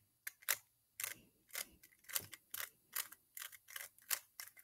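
3x3 Rubik's cube being turned through a PLL algorithm, its layers clicking as they snap round. The clicks come as a faint, irregular run, a few a second.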